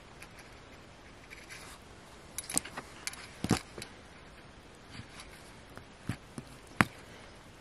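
Water-softened crumbly shell of a toy 'rock' being squeezed and cracked open by hand: faint crumbling and scraping with a few sharp cracks, the loudest a little before the end.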